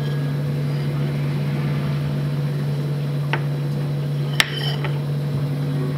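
Steady low hum of kitchen equipment. A light knock comes about three seconds in, then one sharp, ringing clink of a utensil against dishware about four and a half seconds in, followed by a softer tap.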